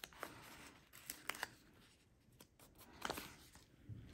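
Faint rustling of a paper sticker sheet and a few light clicks as a small bow sticker is peeled off and pressed onto a planner page.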